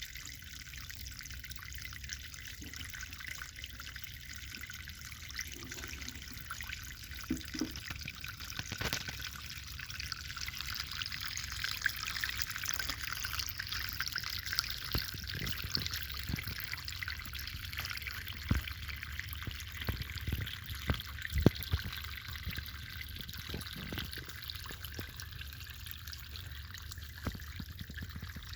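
Water running and splashing steadily, with a few short knocks scattered through it.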